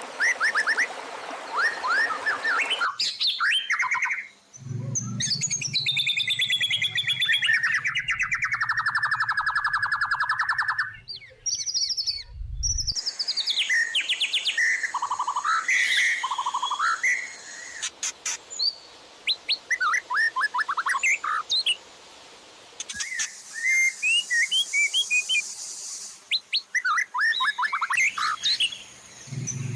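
Songbird song spliced from several recordings: fast, varied whistles, trills and chirps that change abruptly every several seconds, with a low hum under some passages. It is a masteran mix of white-rumped shama song and fill calls from other species, used to train a caged shama.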